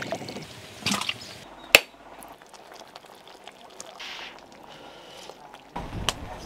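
Water pouring and sloshing, with a few sharp clicks or knocks; the loudest knock comes just under two seconds in, then a quieter steady hiss.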